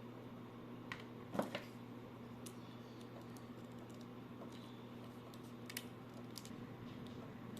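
A few sparse, light clicks and taps over a steady low hum; the loudest tap comes about a second and a half in. The clicks are typical of small plastic parts being handled.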